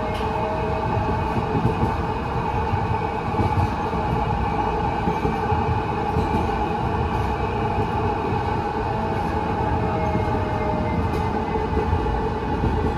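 Cabin ride noise of a 2023 Siemens LRV4 light rail car under way: a steady rumble of the wheels on the rails with a steady whine over it and an occasional faint tick.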